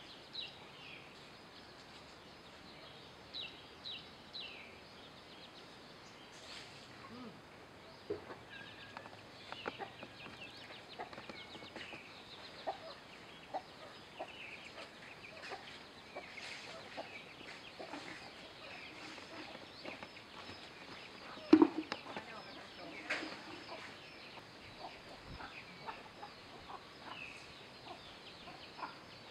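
Young chickens clucking in short, scattered calls while they forage, with one sharper, louder sound about three quarters of the way through.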